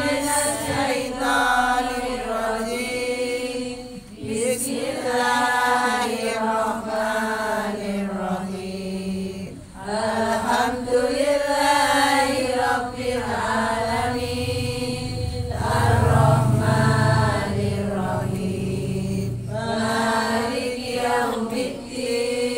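A group of women chanting an Islamic recitation in unison, in long melodic phrases with short pauses for breath.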